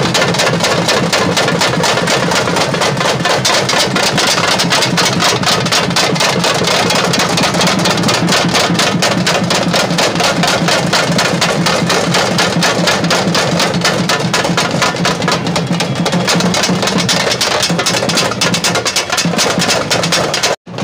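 Several large double-headed drums beaten with sticks, playing fast, continuous drumming without a break. The sound cuts out abruptly for an instant near the end.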